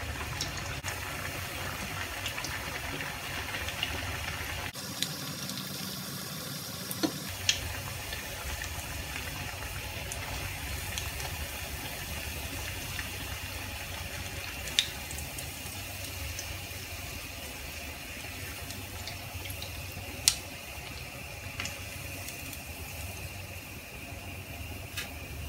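Egg-coated chicken kebabs sizzling as they fry, a steady hiss broken by a few sharp pops.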